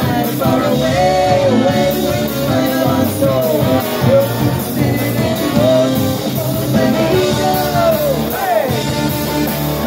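A live band playing a song: a woman singing lead over two saxophones, drums and electric guitar, with a steady beat.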